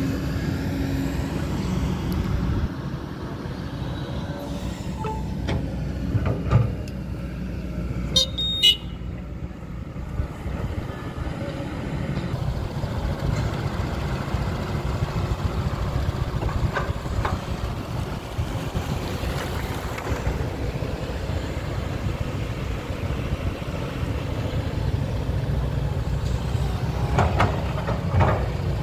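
Kobelco crawler excavator's diesel engine running steadily under load as it digs, with occasional knocks and a short high-pitched tone about eight seconds in.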